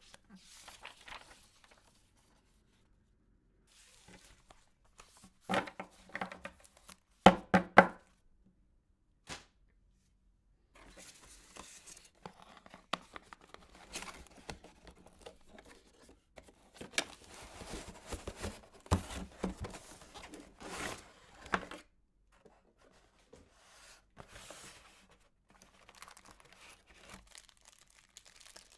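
Hands handling cardboard packaging, in bursts with short pauses: the box and its flaps sliding and rustling, a few sharp knocks about seven seconds in, then a long stretch of rustling and scraping. Near the end, plastic bags crinkle as the wrapped accessories are lifted out.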